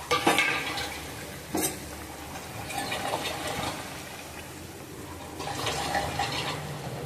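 A utensil knocks against the kadhai twice in the first two seconds, then a spatula stirs the thin, simmering curry, the liquid sloshing in two stretches.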